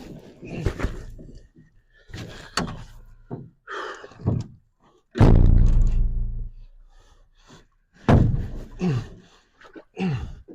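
Canoe and gear being handled at the shore: a series of knocks and thunks against the hull, with one loud, deep hollow thud about five seconds in.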